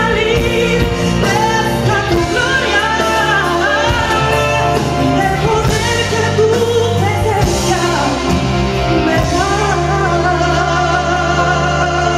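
A woman singing a Christian worship song into a microphone over instrumental accompaniment with a steady bass line, amplified through a church sound system.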